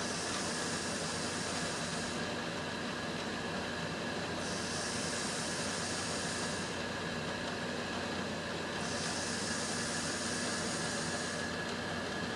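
A sleeping person snoring, heard as a hissing breath about every four and a half seconds, three breaths in all, over a steady background hum.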